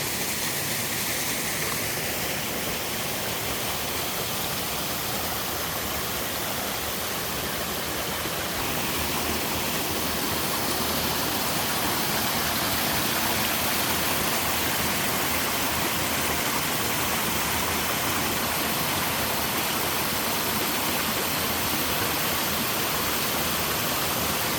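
Small waterfall in a mountain stream, water falling and rushing steadily; it grows a little louder about nine seconds in.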